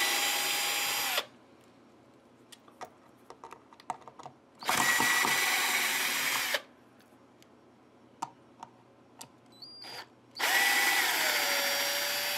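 Drill-driver with a Phillips bit running in three short bursts, backing out the screws of a guitar's bridge plate, with small clicks of handling between bursts. The motor's pitch drops partway through the last burst.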